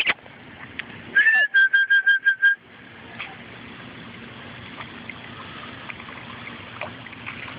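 A person whistling to call a dog: a rising note about a second in, then a quick run of short, even whistled notes that stops abruptly.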